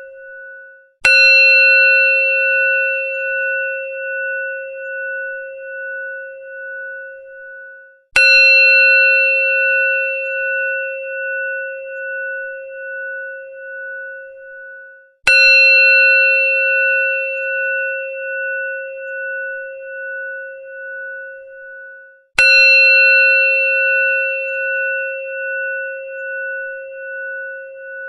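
Temple bell struck four times, about seven seconds apart. Each strike rings on in a long, wavering hum that fades almost away before the next.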